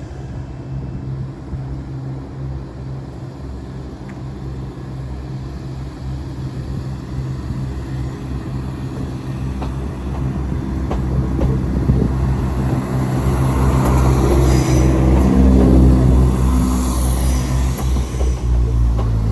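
Class 171 Turbostar diesel multiple unit pulling away under power, its diesel engine note steady and growing louder over the second half, with wheels squealing on the rails toward the end.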